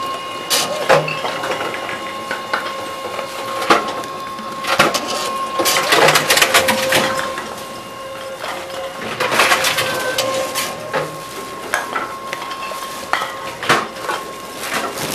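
Tomra T-63 reverse vending machine taking in plastic bottles: a steady electrical hum with a high whine under scattered clicks and knocks, and two longer bouts of plastic clattering and rattling as bottles are fed in and carried away.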